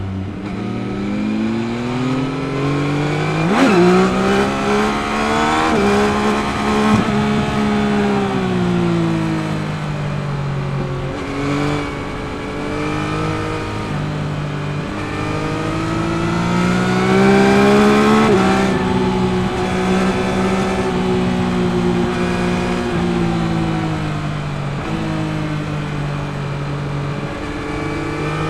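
2021 Yamaha MT-09 SP's 890 cc inline-three engine on its stock exhaust, ridden on the road: the revs climb and fall again and again, with two sudden drops in pitch at gear changes, then sink slowly over the last several seconds as the bike slows.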